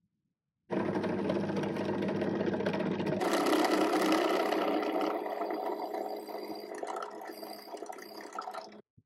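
Bench drill press running, its bit boring into a small wooden handle. It starts suddenly, grows brighter and louder about three seconds in, then eases off and stops abruptly near the end.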